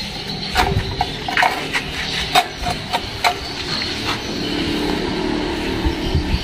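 Sharp metallic knocks and clicks, about eight in the first three seconds, as a steel strip is set into the jaws of a press brake before bending. A low steady hum follows.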